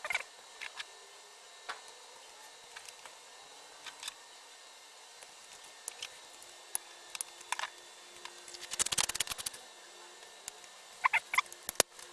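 Small clicks and taps of parts being handled as a security camera is reassembled, with a quick run of rapid clicks about nine seconds in and a few more clicks near the end.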